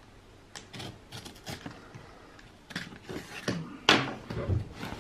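A cardboard box being opened and handled: a run of scrapes, rustles and knocks, the sharpest about four seconds in.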